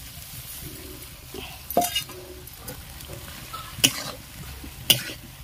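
A ladle stirring spice paste frying in a pan, with a faint sizzle and three sharp knocks of the ladle against the pan, about two, four and five seconds in.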